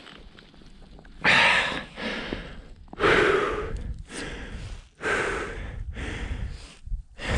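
A man breathing heavily, four deep gasping breaths about two seconds apart; he is out of shape and winded from snowboarding.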